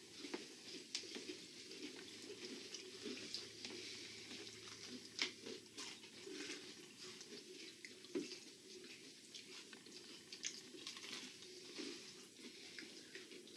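Faint chewing of Oreo sandwich cookies in a small room, with a few soft clicks and rustles scattered through it.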